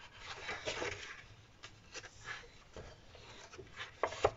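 Sheets of a scrapbook paper pad being turned over by hand: several soft swishes and rustles of paper, with a couple of sharper knocks near the end.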